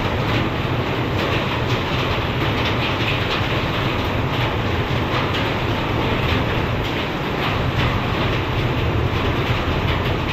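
Heavy thunderstorm rain and high wind: a steady roar, with dense pattering of drops striking the window glass.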